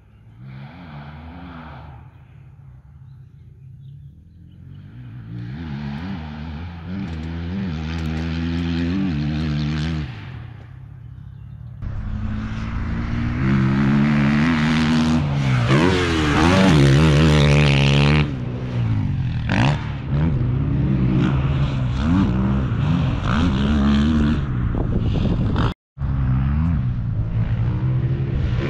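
Dirt bike engine revving up and falling back again and again as it is ridden hard through the gears. It is faint at first, grows louder towards the middle where it is loudest, and stays strong to the end, with a brief dropout near the end.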